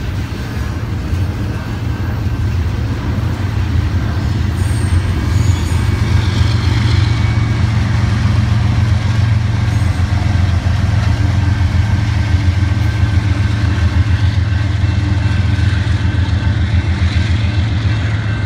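BNSF double-stack container train passing close by: a loud, continuous low rumble of wheels on rail, with a diesel locomotive's engine throbbing as it goes by in the middle.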